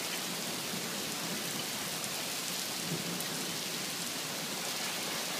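Steady rain falling in a thunderstorm, with a low rumble of thunder about two to three seconds in.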